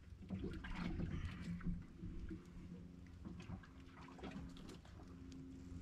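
Faint water lapping and small splashes against a boat hull, over a steady low hum.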